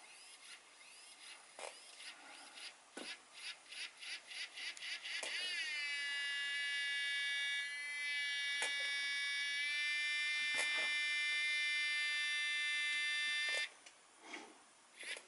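Small electric smoke-unit fan in a model steam locomotive, heard with the loco's sound turned off: it puffs in quickening pulses timed to the exhaust beats, then spins up into a steady high whine for several seconds and cuts off suddenly near the end.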